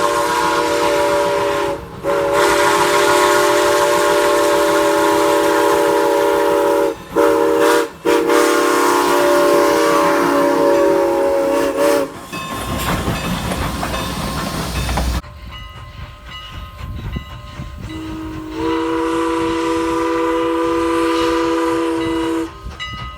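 Steam locomotive chime whistle sounding a chord of several tones in long blasts, with brief breaks about 2 s in and twice more around 7–8 s. It stops about halfway through, giving way to a few seconds of rumbling noise. The chord whistle sounds again in one long blast near the end.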